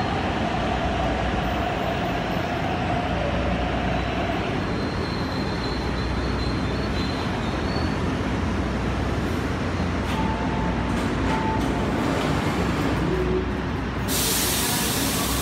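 MTR Ma On Shan Line C-Train electric train at a station platform, with a steady rumble and a faint held whine early on. A sudden hiss starts about a second before the end.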